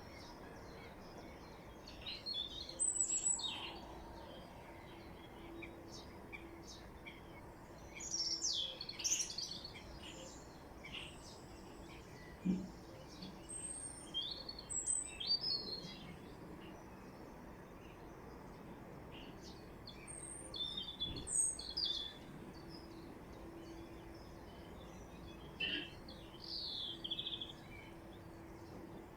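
Wild birds calling and singing in short high chirps and trills that come in scattered bursts, over a faint steady low hum.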